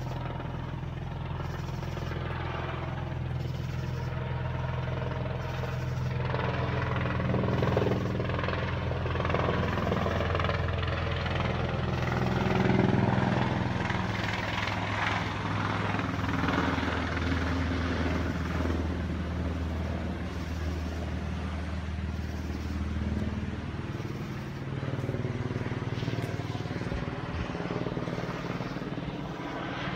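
Police helicopter circling overhead, its rotor and engine a steady low drone. It grows louder through the first half, strongest about 8 and 13 seconds in, and eases off about 24 seconds in as it swings away.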